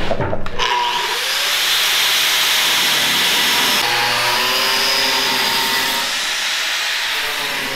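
Electric angle grinder spinning up, then its abrasive disc cutting into a metal exhaust pipe: a steady grinding hiss over the motor's whine, which shifts in pitch a couple of times as the disc bites.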